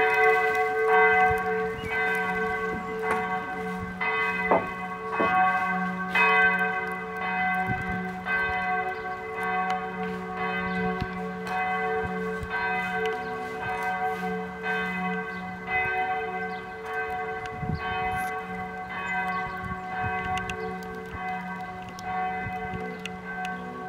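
Several large bells ringing together in a continuous peal. Their strokes overlap so the tones hang on without a break, growing a little fainter toward the end.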